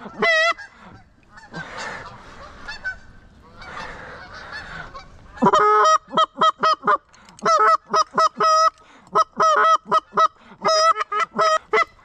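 A flock of geese honking overhead: one honk near the start, then from about halfway through a rapid, continuous run of short honks, several a second.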